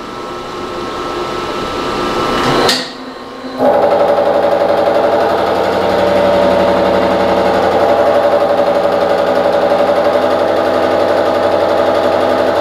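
Vertical milling machine taking a 50-thou-deep facing cut across a steel vise-jaw blank. The machine's sound rises, dips briefly, then about three and a half seconds in the cutter bites into the steel and cuts with a steady, many-toned drone.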